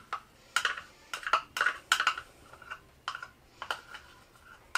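Irregular light clicks and short scrapes of a small utensil against a plastic measuring cup, scraping honey out into a mixing bowl.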